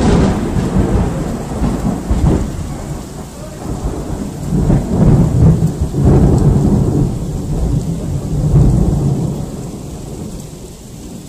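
Loud thunder rolling on in a long rumble with several swells, over steady rain, dying away near the end.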